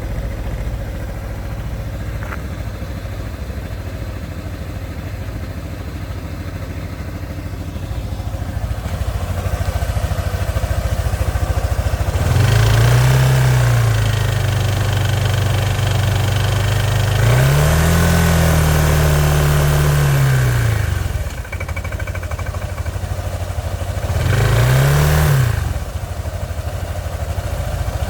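Kymco Downtown 300i scooter's single-cylinder four-stroke engine idling steadily, then revved up and let fall back several times from about halfway through. A metallic knocking runs through it, which the owner finds too strong and suspects of a connecting-rod bearing or valve problem.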